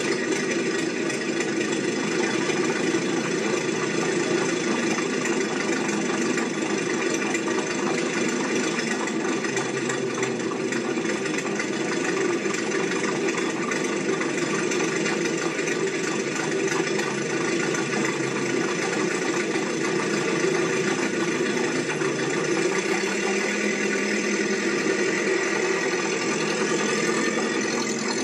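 A machine running steadily.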